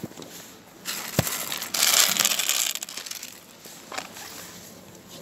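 Plastic crinkling and rustling, strongest for about a second around two seconds in, with a sharp knock just after one second.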